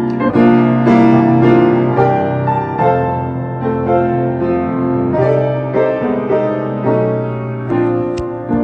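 Piano playing chords with a melody over them, the notes changing in steps every half second or so, with no singing.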